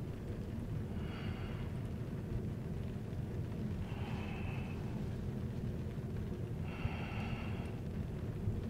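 Steady low rumble of a vehicle driving, heard from inside the cabin, with slow breaths of a sleeping person about every three seconds.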